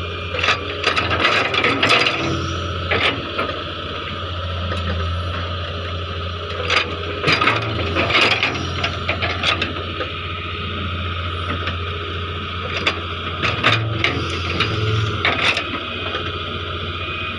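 Hitachi EX100 excavator's diesel engine running steadily, with three bouts of clattering knocks and scraping of the machine at work.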